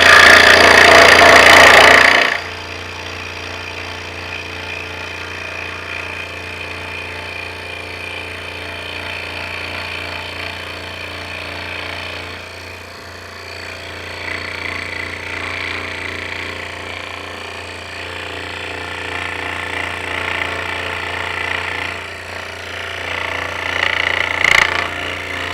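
Scroll saw running and cutting an interior cutout in hardwood, with its blade threaded through a drilled hole: a steady reciprocating hum with the cutting noise rising and falling. The first two seconds or so are much louder, then the level drops suddenly.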